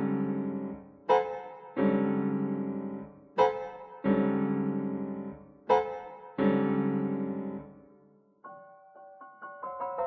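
Solo piano playing loud chords in pairs, a short chord and then a longer one left ringing until it dies away, three times over. From about eight and a half seconds in come quicker, quieter notes high in the treble.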